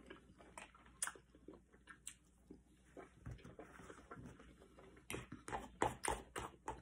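Quiet chewing and mouth sounds with scattered soft clicks of a metal fork on a plate. The clicks come thicker and sharper in the last couple of seconds as the fork picks up a bite.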